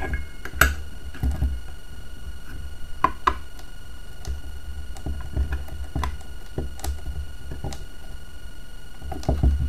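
Light clicks, taps and scrapes of a small PC speaker being handled and pressed into the metal body of a water meter, scattered irregularly, over a steady low hum.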